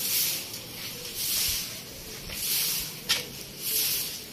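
A stiff grass broom sweeping a tiled floor in regular strokes, a hissing swish about every second, with one sharp click about three seconds in.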